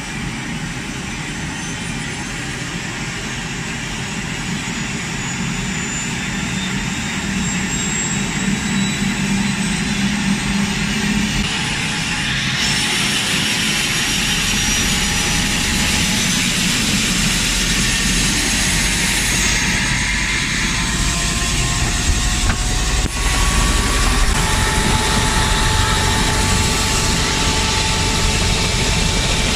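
Helicopter turbine engine starting up, heard inside the cabin: a rising whine as the engine spools up, a sudden jump in hissing jet noise about twelve seconds in, then a deep low rumble that builds through the second half as the rotor comes up to speed and the sound grows steadily louder.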